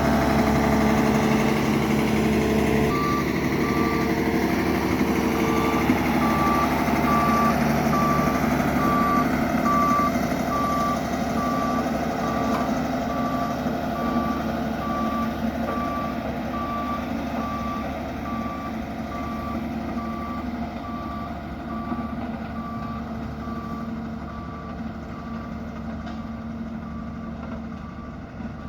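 Dynapac road roller's diesel engine running, with a reversing alarm beeping steadily from about three seconds in. The engine grows gradually fainter.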